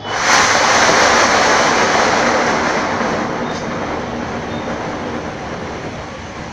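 Homemade anaar fountain firework (gunpowder packed in two bottle caps) burning with a loud hiss as it sprays sparks. The hiss flares up suddenly at the start, then slowly dies down.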